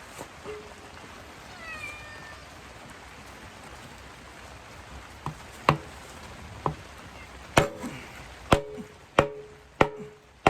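A series of hard blows struck against a foam-core composite fiberglass panel in an attempt to puncture it: sharp knocks with a short ringing tone, about eight of them from halfway through, coming faster and louder toward the end. The panel takes them without damage.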